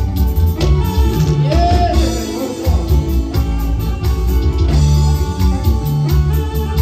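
Live band music: electric guitar, bass guitar, keyboard and drums playing a steady dance beat.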